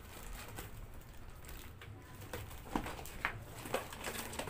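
Cardboard shipping box being handled and pried open by hand: scattered faint taps, scrapes and rustles of cardboard, more frequent in the second half.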